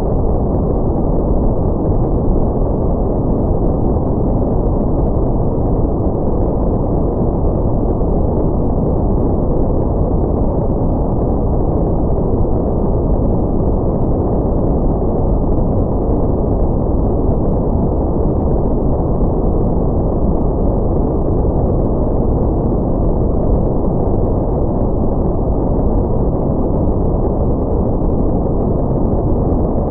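Steady deep rumbling noise, like brown noise, made as a spaceship-shuttle interior ambience with a low engine rumble under it, all the sound below about 1.5 kHz and unchanging throughout.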